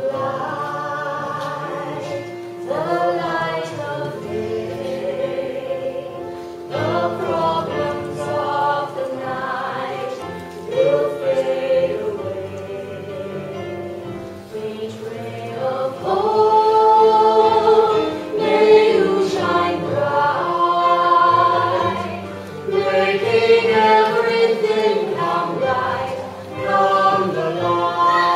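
Cast of a stage musical singing a song together, with sustained sung notes that move in pitch, growing louder about halfway through.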